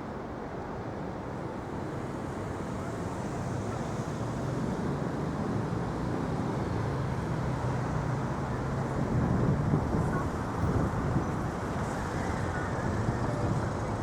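City street traffic running steadily, swelling as a vehicle passes close, loudest about nine to eleven seconds in.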